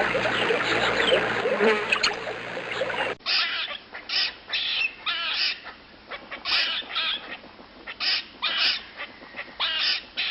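A dense chorus of forest bird calls, full of quick rising and falling notes. About three seconds in, it cuts to a series of short repeated calls, each burst a quick run of falling notes, coming about once a second.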